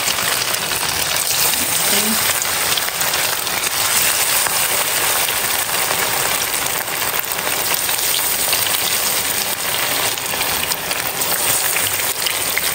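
Masala-coated fish pieces deep-frying in hot oil in a wok: a steady, dense sizzle of bubbling oil.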